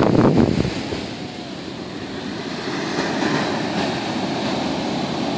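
Wind buffeting the microphone for about the first second, then a steady wash of ocean surf.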